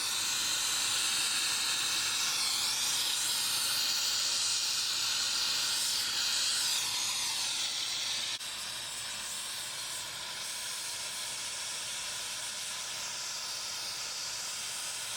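Nitrogen hissing as it flows through the refrigerant lines from a tank regulator set for a brazing purge. A steady hiss that drops suddenly to a lower, steady level about eight seconds in.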